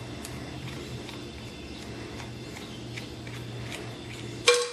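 Small metal parts being handled on a diesel cylinder head, faint clicks over a steady low hum, then near the end a single sharp metallic clink that rings briefly.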